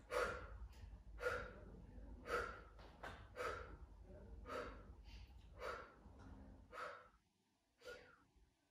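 A woman's short breaths out, about one a second, in time with the repetitions of a Pilates abdominal exercise.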